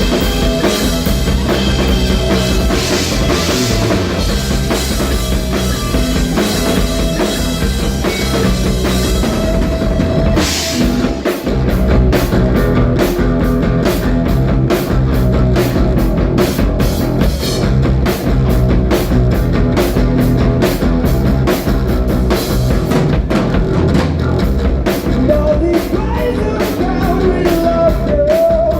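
Rock band playing live and loud, with a drum kit driving the beat; about eleven seconds in the drums settle into a fast, steady beat.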